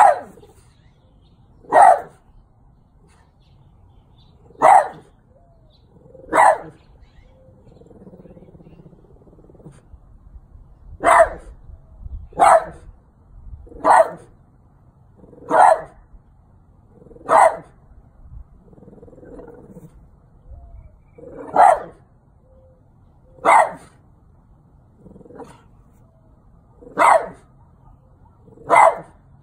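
A 12-year-old French bulldog barking at a steady pace: single barks every couple of seconds, about fourteen in all, with two longer pauses about eight and nineteen seconds in.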